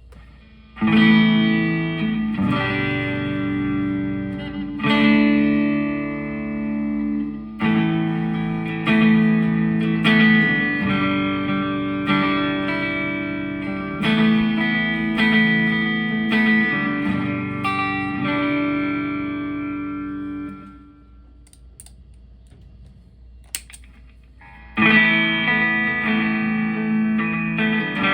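Electric guitar played through a Tank-G hybrid effects setup: chords strummed and left to ring, a new chord every two or three seconds, with a little grit. It stops for a few seconds about two-thirds of the way in, leaving a faint hum, then starts again near the end.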